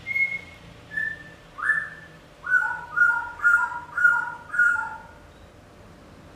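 A series of clear whistled notes: a few single notes stepping down in pitch, then a quick run of notes alternating between a higher and a lower pitch, stopping about five seconds in.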